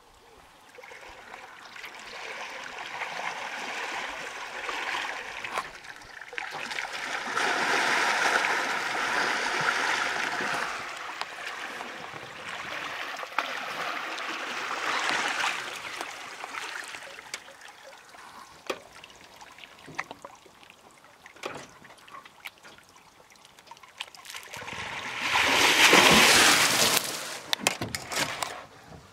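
Water splashing and sloshing as an African elephant wades through a river at very close range, in swelling waves with the loudest surge near the end.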